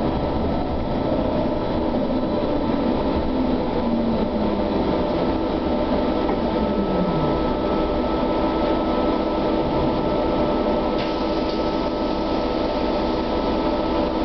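Interior ride noise of an SOR TN12A trolleybus under way: a steady rumble with several steady humming tones from the electric drive, one whine falling in pitch about six seconds in. A click about eleven seconds in.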